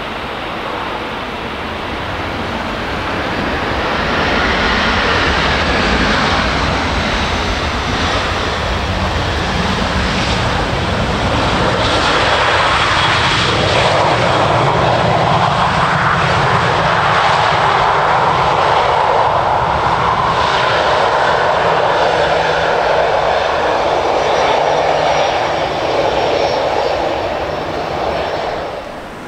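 Jet engines of an easyJet Airbus A320-200 on landing and rollout. The engine noise swells about four seconds in, holds loud and steady for most of the stretch, then falls away near the end.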